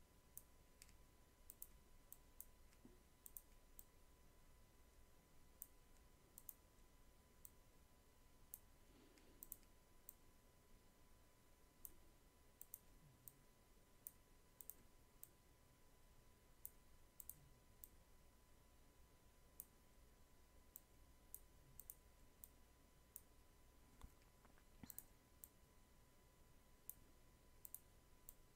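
Faint, irregular computer mouse clicks, often in quick pairs or short runs, over near silence, from clicking with the healing brush. A faint steady tone sits underneath.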